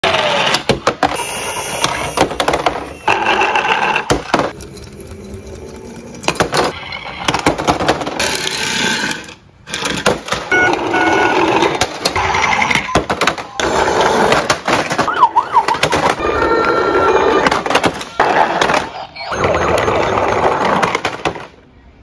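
Battery-powered toy emergency vehicles sounding electronic sirens, mixed with many plastic knocks and clatters as toy cars slide and tumble into a container. The sound breaks off briefly about nine seconds in and again near nineteen seconds.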